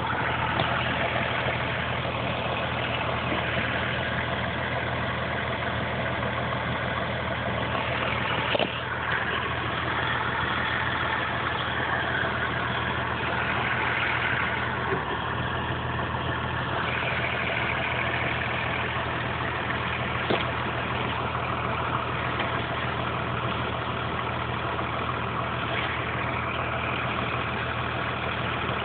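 Caterpillar 535C skidder's diesel engine idling steadily, with a couple of brief knocks.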